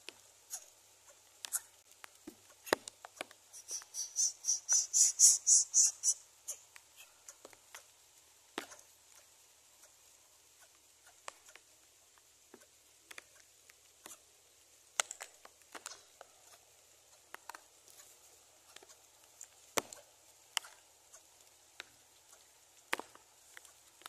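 Scattered clicks and rustles of dry grass and twigs as the birds shift in a greater coucal nest, with a rapid run of high, squeaky chirps from the nest, about five a second, starting about three and a half seconds in and lasting some two seconds.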